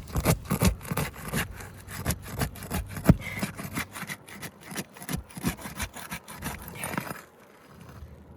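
GAF Royal Sovereign asphalt shingles being broken loose from their seal strips: a fast, irregular run of scraping and crackling strokes that stops about seven seconds in.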